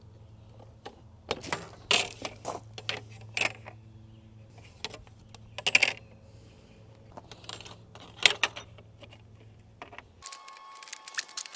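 Irregular metallic clinks and clacks of tools and hardware on a chainsaw mill's metal frame as its bolts are loosened and adjusted, over a steady low hum that cuts off near the end.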